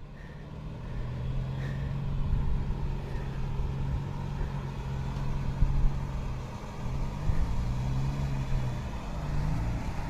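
Jeep engine running as the vehicle drives, its pitch holding steady and then dipping and rising again near the end as the throttle changes, over a low rumble.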